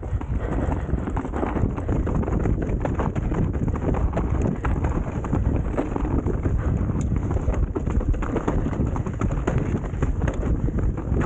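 Enduro mountain bike riding down a snowy trail: a steady rush of tyre and wind noise on the microphone, with constant small knocks and rattles from the bike.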